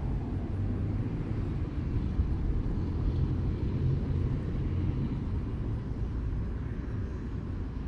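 Steady low outdoor rumble with no distinct events, most of its weight deep in the bass.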